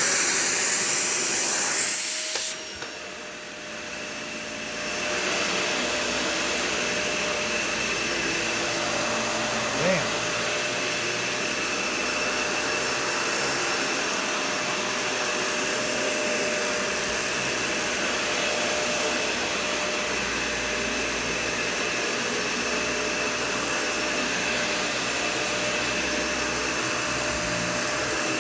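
Dyson Ball Total Clean (UP13) upright vacuum cleaner running with a steady high whine. It starts very loud, drops off abruptly after about two and a half seconds, then builds back over a couple of seconds to a steady run. A small knock comes about ten seconds in.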